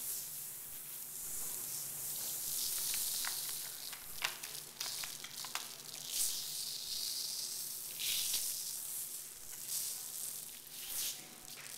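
Paper bags rustling and crinkling as they are handled close by: a crackly hiss with scattered sharp clicks and swells of louder crinkling.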